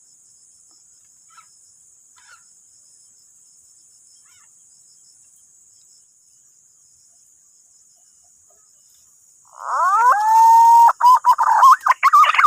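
A steady high insect drone with a few faint distant chirps. About three-quarters of the way through, loud whistled punai (green pigeon) calls start close by: rising glides into a held note, then a rapid warbling run.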